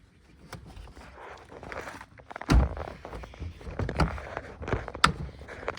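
Metal and plastic parts being handled during under-hood repair work: rustling with a series of knocks and clunks. The loudest is a heavy thud about two and a half seconds in, followed by sharp clicks about four and five seconds in.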